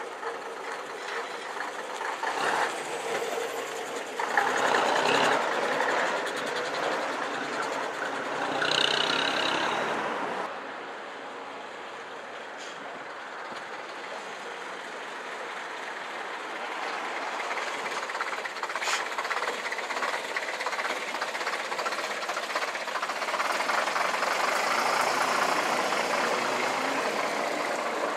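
Vintage diesel double-decker buses pulling away and driving past, one after the other. The first grows loud as it accelerates away and is cut off abruptly about ten seconds in; a second bus's engine then builds steadily louder as it approaches.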